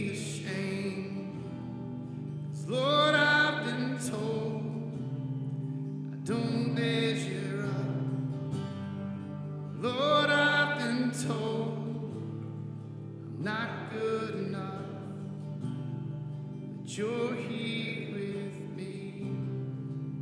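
Live worship band music: guitars and bass playing a steady, sustained accompaniment, with a melodic phrase swelling up roughly every three to four seconds.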